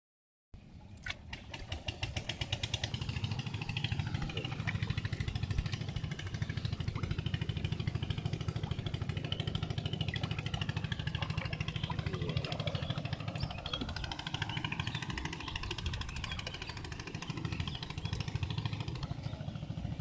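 Small engine running steadily with a fast, even pulse. It starts about half a second in, after a brief gap of silence.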